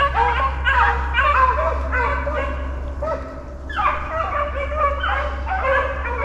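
A pack of beagles baying on a rabbit's trail, several dogs' drawn-out calls overlapping and repeating over and over.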